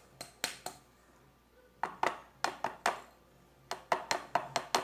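Sharp, irregular clicks and taps of a utensil against a plastic slime pot, about a dozen in three short clusters.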